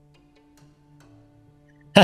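Quiet background music: soft, low held notes that change a couple of times.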